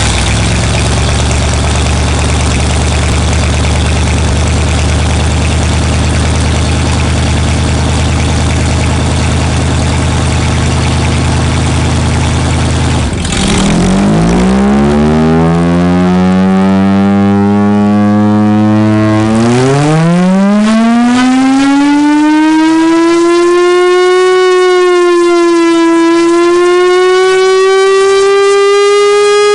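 Chrysler air raid siren: its V8 engine runs steadily for about thirteen seconds, then the siren winds up, its deep tone gliding upward in two stages into a high, steady wail that wavers slightly before holding.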